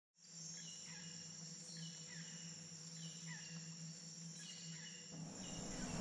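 Jungle night ambience: a steady high insect trill with short descending bird calls repeating about once a second. A rising rumble starts building about five seconds in.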